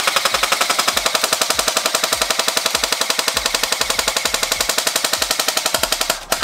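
S&T BAR M1918A2 airsoft electric gun, upgraded with TNT and Lonex parts, firing one long full-auto burst at about 17 shots a second, its gearbox cycling with each shot. The burst stops just before the end.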